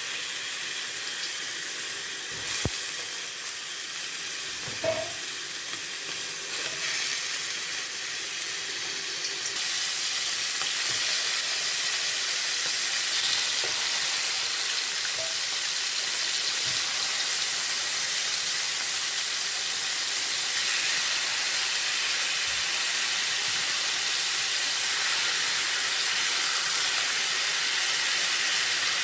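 Seasoned chicken pieces searing in hot oil in a pot over high heat: a steady sizzle, with a couple of short knocks in the first five seconds.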